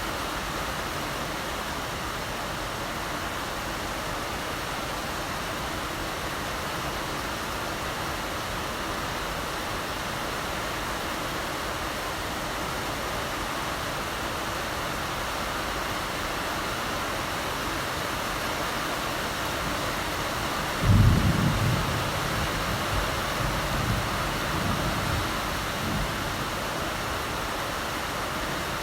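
Steady heavy rain. About three quarters of the way through, a roll of thunder breaks in suddenly as a low rumble, then comes in a few waves and fades over about five seconds.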